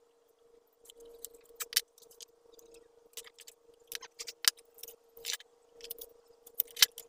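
Scattered light clicks, taps and scrapes of metal tools handled on a wooden board: a steel square and a thin metal strip being shifted and set down while measuring and marking with a pencil. A faint steady hum runs underneath.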